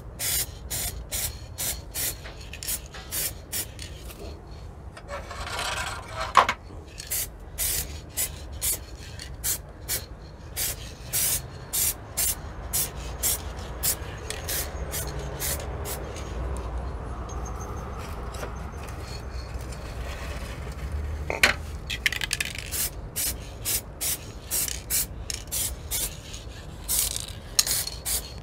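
Aerosol spray can of plastic primer hissing in short rapid bursts, about two a second, as a first thin coat is dusted on; the bursts thin out midway. A sharp knock sounds twice.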